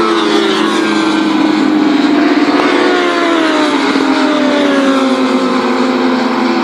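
Several racing motorcycles running at high revs as they pass on the track, their overlapping engine notes slowly falling in pitch.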